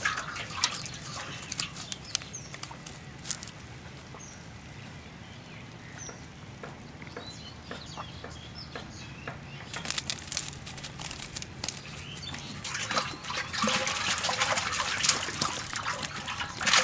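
Fish being handled in a wet nylon cast net: scattered taps, flaps and rustles, growing busier and louder over the second half, with some water splashing from fish dropped into a pot of water.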